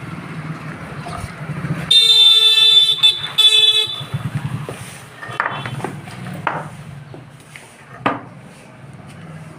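A vehicle horn honks twice, a long blast then a shorter one, over a low steady hum.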